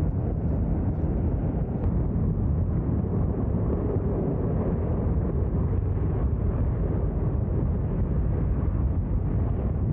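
Space Shuttle Main Engine, a liquid-hydrogen/liquid-oxygen rocket engine, firing on its test stand: a loud, steady, deep rumble that holds unchanged.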